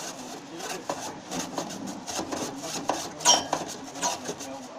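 Irregular clatter and rubbing of hard objects being handled, with a sharper knock about three seconds in.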